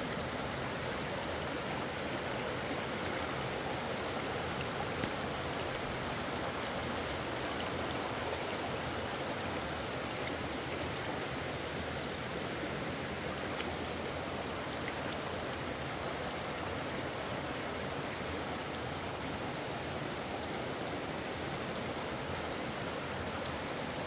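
Water of a shallow, rocky river rushing steadily over and between the stones.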